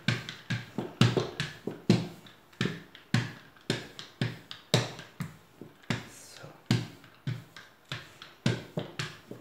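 Small handheld dough roller being pushed back and forth over dough on a silicone baking mat, giving a short knock at each stroke, about two a second.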